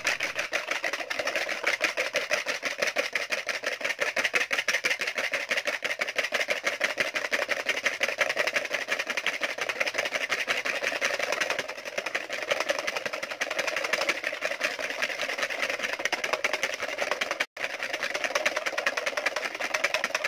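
Wire balloon whisk beating a thick mixture of instant coffee, sugar and hot water in a plastic bowl by hand, swished quickly back and forth to whip it into dalgona coffee foam: a rapid, even run of strokes, with a split-second break near the end.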